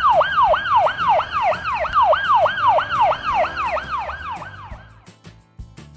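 Police car siren in a fast yelp, each cycle jumping up and sliding back down about three times a second, fading out about five seconds in.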